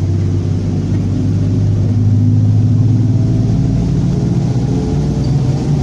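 Mercedes-Benz OF-1722M bus running under way, heard from on board: a steady low four-cylinder diesel engine note with a growling differential. A thin whine comes in about halfway through and rises slightly in pitch.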